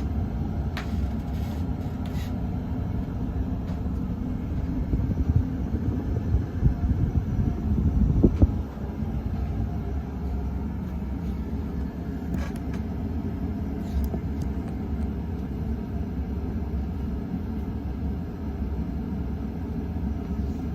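KDK Royalaire 52-inch ceiling fan running on high speed: a steady low rumble of the motor and moving air. It grows louder and more uneven for a few seconds in the middle.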